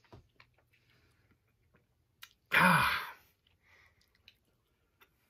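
A man chewing sour candy, with faint wet mouth clicks, then one loud, breathy voiced exhale with a falling pitch about two and a half seconds in: a reaction to the candy's intense sourness.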